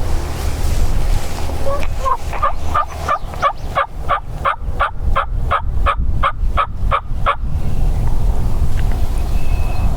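Turkey calling: a long run of about twenty evenly spaced yelps, three or four a second, that stops a little past seven seconds in. Wind rumbles on the microphone throughout.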